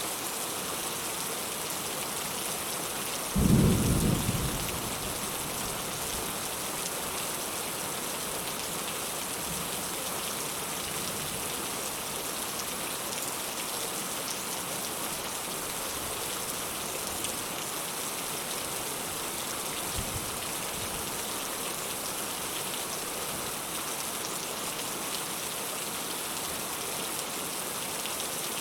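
Steady rain falling. About three and a half seconds in, a single loud clap of thunder rumbles and dies away over about a second, with a much fainter low rumble later on.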